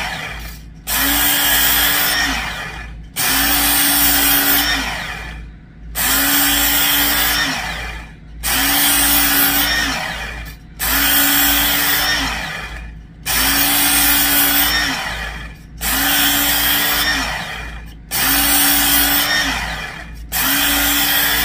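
Work Sharp electric belt sharpener with a coarse P80 belt grinding a D2 steel knife blade, in about ten passes of roughly two seconds each, every one starting sharply and fading out, with the motor's hum under the grinding. The coarse belt is taking steel off to reshape the bevel and raise a burr.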